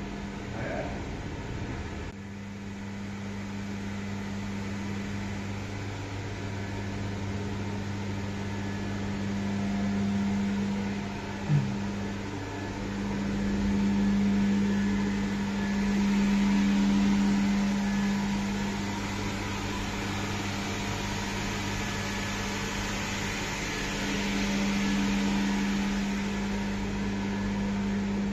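Steady mechanical hum with a constant low tone over a soft hiss, swelling gently now and then, and one brief knock about halfway through.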